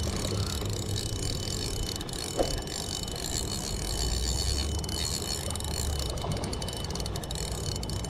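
Fishing reel being cranked as a hooked largemouth bass is played in, its gears turning, with a run of fine clicks near the end. Steady rain and wind hiss runs underneath.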